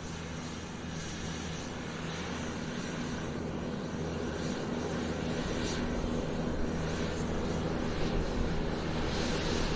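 Airplane taxiing, its engines running with a steady hum that grows gradually louder.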